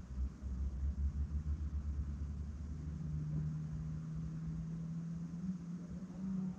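Low rumble of a car, uneven for the first few seconds, then giving way about three seconds in to a steady low hum.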